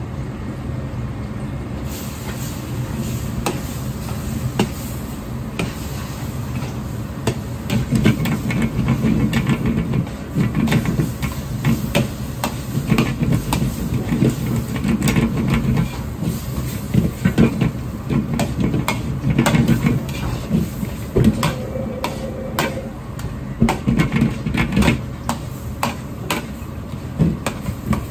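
Wok stir-frying over a high gas flame: a steady burner rush and the hiss of rice frying in sauce, with a steel ladle clanking and scraping against the wok. The ladle strikes grow busier and more irregular about eight seconds in.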